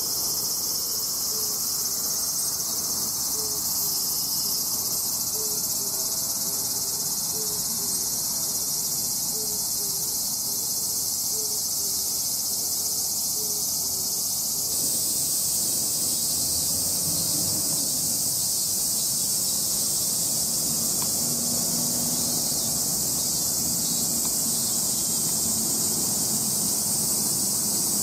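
Steady, dense high-pitched chorus of insects, shifting slightly in tone about halfway through.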